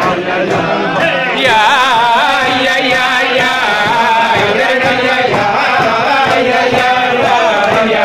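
A group of men singing a Chasidic melody (niggun) together, the voices rising slightly in loudness about a second and a half in.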